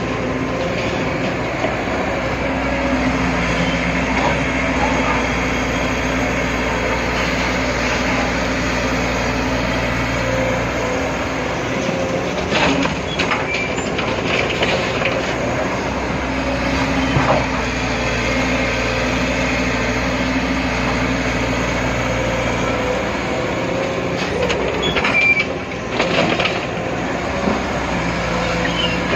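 Excavator's diesel engine working under load while it loads soil into a tipper truck, its note holding steady for several seconds at a time and then dropping off twice, with a few metallic clanks, the loudest about 25 seconds in.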